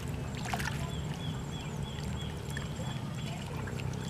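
Water lapping and light splashes at the water's edge over a steady low hum, with a faint, quickly repeated high chirp.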